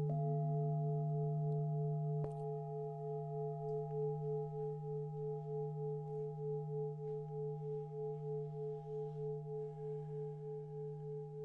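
Singing bowls ringing together in several sustained tones, with a slow, even wavering beat in the sound. About two seconds in there is a single light knock, after which the deepest tone is quieter and the ringing slowly fades.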